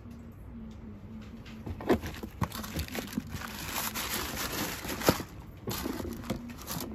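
Crinkling and rustling of crumpled wrapping paper in a shoe box as a patent leather sneaker is lifted out. Two sharp knocks stand out, about two seconds in and about five seconds in.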